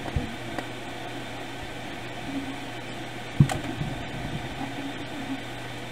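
Steady hiss and low hum of background noise, with a light knock just after the start and a sharper thump about three and a half seconds in.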